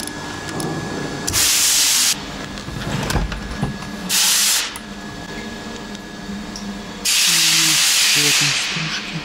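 Three hissing blasts of pressurised spray: one of just under a second, a shorter one of about half a second, and a longer one of nearly two seconds near the end.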